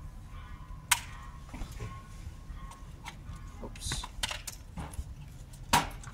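Clicks and knocks of hands handling a Zhiyun Crane 3S camera gimbal as its arms are turned and its handle gripped. Two sharp clicks stand out, one about a second in and a louder one near the end.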